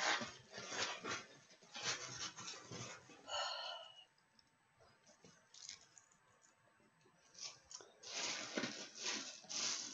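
Plastic parcel wrapping rustling and crinkling in bursts as hands pull and tear at it. A short squeak comes about three seconds in, and there is a quiet spell in the middle.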